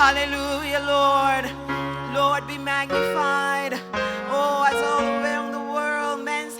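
Gospel worship music: a singing voice over sustained keyboard chords and bass notes.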